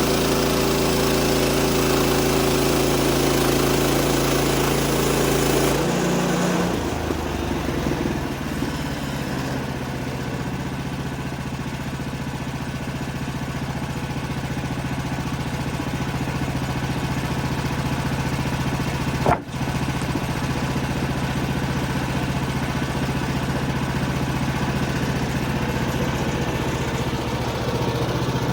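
Engine running steadily, its pitch dropping about six seconds in and then holding, with one short click partway through.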